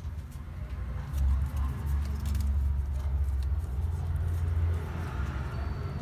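A steady low rumble with faint scattered clicks of plastic as a laptop's palmrest cover panel is handled and lifted off.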